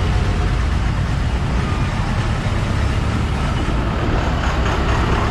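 Steady road-traffic noise heard from a moving scooter in a traffic jam: engines and a low rumble from the vehicles alongside, including a truck close by.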